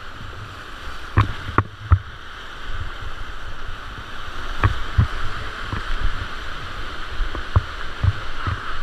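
Rushing whitewater river with a steady hiss, heard from the bow of a plastic whitewater kayak, broken by about eight dull knocks and splashes from paddle strokes and the hull bumping rocks and gravel.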